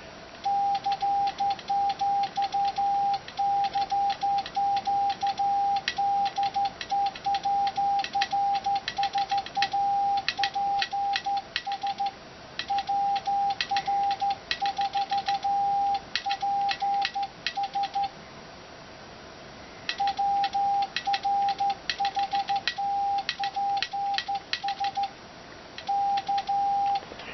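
Morse code tone of about 750 Hz keyed on and off in quick dots and dashes, sent by hand through a wireless Arduino Morse key to an amateur HF transceiver, with sharp clicks of the key at each keying. The sending pauses for about two seconds around two-thirds of the way in and briefly near the end.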